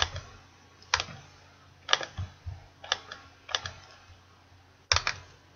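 Separate clicks of a computer mouse and keyboard keys, roughly one a second, with a quick pair near the end, as a web address is copied and pasted between browser tabs.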